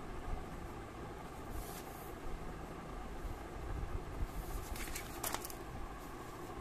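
Steady low background rumble, with a short rustle of paper and handling about five seconds in as the spiral sketchbook is picked up and tilted.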